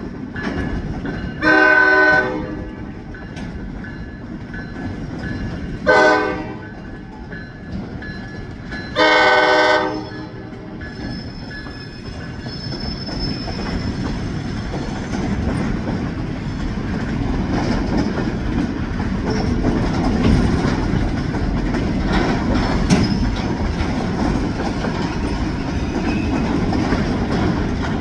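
A Juniata Valley Railroad switcher's horn sounds three blasts, long, short, long, the end of a grade-crossing warning. Then the freight cars roll past, a rumble growing steadily louder.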